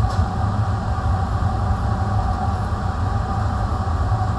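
Fume cupboard extraction fan running steadily: a noisy, even low rumble with a faint hum over it.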